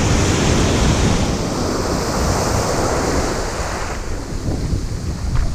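Ocean surf breaking on a sandy beach: a wave washes in and fades after about four seconds, with wind rumbling on the microphone throughout.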